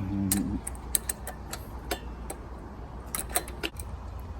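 Irregular sharp metal clicks and taps of tools and parts on an old BMX bicycle headset as it is being worked loose, about a dozen ticks over a few seconds, over a low steady hum.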